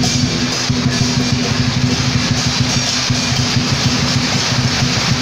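Music from a Chinese funeral procession's band, heard over a steady hiss of heavy rain.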